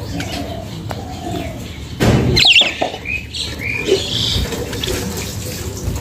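Caged budgerigars chirping: a few short rising and falling calls starting about two seconds in. A sudden rush of noise comes in with the first calls.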